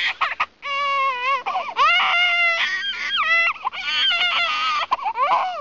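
A girl wailing and sobbing in a string of long, high cries that slide up and down in pitch, with short breaks for breath.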